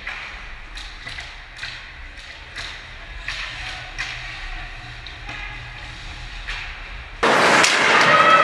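Scattered sharp clacks and knocks of ice hockey play, hockey sticks and puck, over a low steady rink hum. About seven seconds in, much louder arena noise cuts in abruptly.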